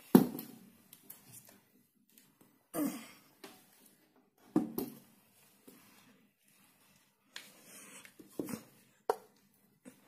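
About five separate plastic knocks and clunks, the loudest right at the start, as a small personal blender's jar is gripped, turned and lifted off its motor base; the motor is not running.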